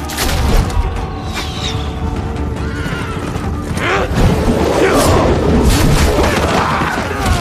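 Dramatic film score with battle sound effects: heavy booming impacts, and from about four seconds in a loud clamour of combat with sliding, cry-like sounds as the warrior is rushed.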